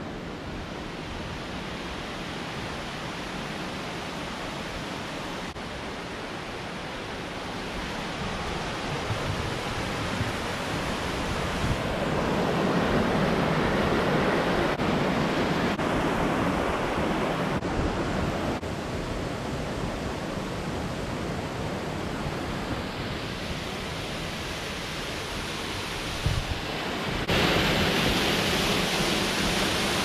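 Steady rush of water from a cascading mountain stream and waterfall. It swells louder in the middle and again near the end, where it turns brighter and hissier.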